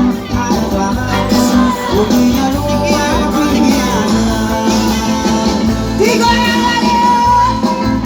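Amplified live band music through a PA: a loud song with a steady beat, guitar and a melody line, some singing.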